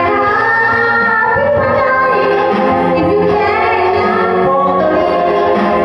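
A woman singing through a handheld microphone over backing music, holding long notes that slide in pitch.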